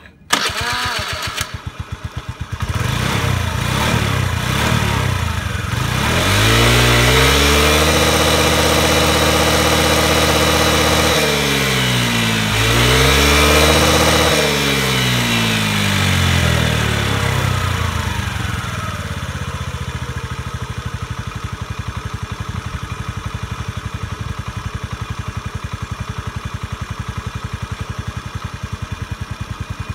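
Honda Today 50cc single-cylinder four-stroke scooter engine, heard at the muffler: it cuts in suddenly just after the start, is revved up and held high for several seconds, dips briefly and is revved again, then falls back to a steady idle for the last third. It revs up freely after the carburettor cleaning and engine-conditioner treatment meant to clear carbon deposits that had stopped it revving.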